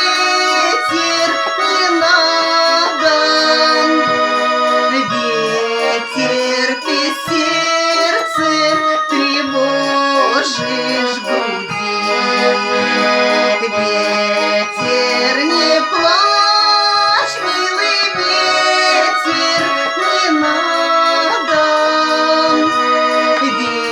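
Garmon (Russian button accordion) playing an instrumental passage: a melody over sustained chords, without singing.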